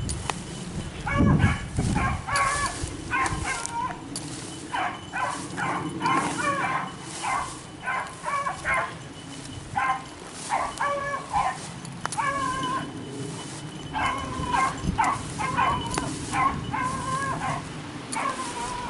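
Beagles baying as they run a rabbit's track, a steady string of short, pitched calls from a pack some way off. A few low thumps come near the start.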